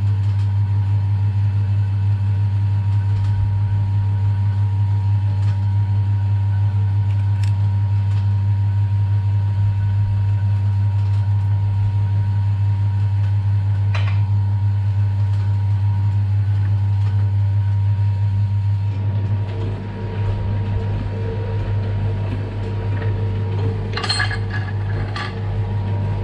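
Metal shaper running under power and taking a cut, with a steady low motor hum. About 19 seconds in the sound turns rougher and noisier, and a few sharp metallic clicks come near the end.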